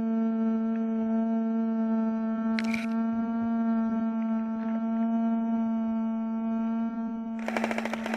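Steady pitched hum of a small fan's motor running close to the microphone. Near the end comes a short burst of rapid full-auto airsoft gunfire.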